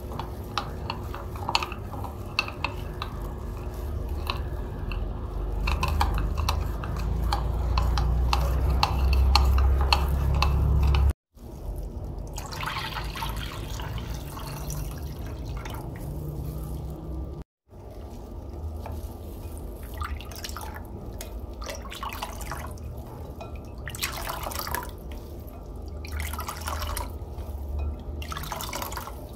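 A spoon clinking and scraping rapidly against a ceramic plate as a spiced mixture is stirred, with a low rumble building underneath. Then water is poured steadily into the plate, and the liquid is stirred with a plastic spoon in separate sloshing strokes every second or two.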